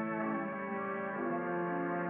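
Instrumental music from a stage musical's accompaniment: slow, held chords that move to a new chord a little past a second in.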